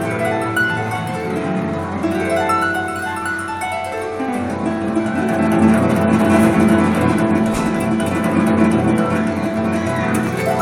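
Solo harp playing a fast instrumental piece, a stream of quick plucked notes that grows fuller and busier in the bass about four seconds in.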